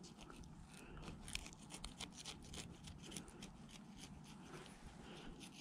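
Serrated fillet knife cutting into a crappie along the spine: faint, quick, irregular clicks and scrapes as the blade works against the bones.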